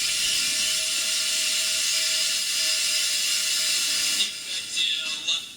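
FM radio static: the steady hiss between stations from the Salyut-001 receiver's VHF band as the dial is turned, through a small loudspeaker. About four seconds in the hiss cuts out as a station is tuned in and broadcast music comes through.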